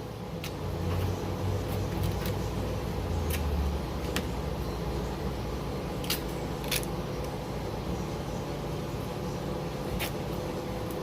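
Scattered light clicks and taps from hands working on the car door and its window glass, about one every second or two, over a steady low hum that is a little louder in the first few seconds.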